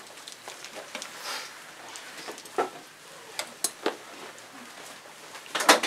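Scattered light clicks and knocks of medical equipment being handled, with a louder cluster of knocks just before the end.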